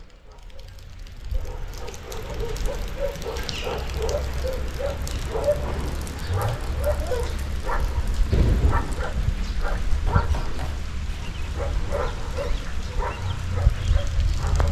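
An animal calling over and over in short, pitched yaps, about two a second, over a steady low rumble.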